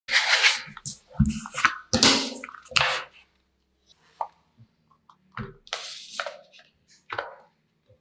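Small metal magnetic balls being handled: a loud burst of clattering and rattling for about three seconds, with a couple of dull knocks among it, then scattered clicks and a few shorter rattles.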